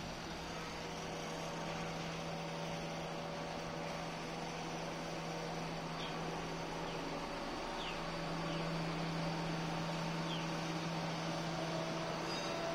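Rotary water well drilling rig's machinery running with a steady low hum, growing slightly louder about eight seconds in.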